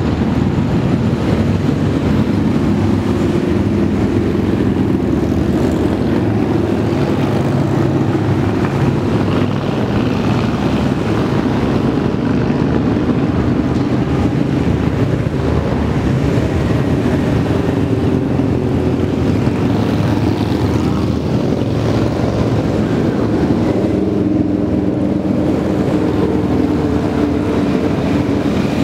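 Motorcycles riding past one after another in a procession, many engines running together in a steady low drone.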